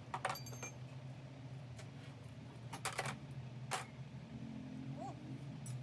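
A few sharp metal clinks and taps, the first pair ringing briefly, over a steady low hum: tools or gearbox parts being handled.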